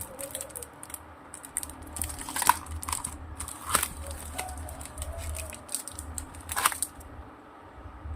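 Paper rustling and crinkling, with irregular light clicks and taps as paper doll pieces are handled, over a low steady hum.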